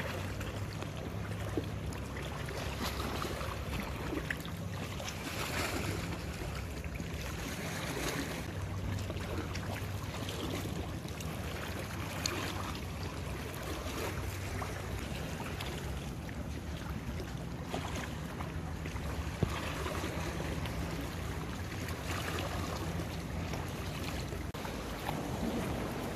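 Canoe paddling on calm sea water: paddle strokes swishing and splashing at an even pace, roughly one every two to three seconds, with water lapping, over a faint steady low hum.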